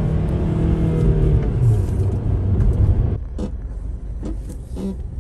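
Car cabin road noise while driving on the highway: a strong low tyre and engine rumble with a slowly falling hum. About three seconds in it drops abruptly to a quieter rumble with a few scattered light clicks.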